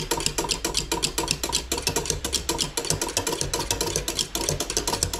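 Eggnog custard mixture being beaten hard by hand in a pan with a makeshift utensil instead of a whisk. The utensil clicks against the pan in a fast, even rhythm. This is the stage where the mixture is stirred constantly on the heat until it thickens.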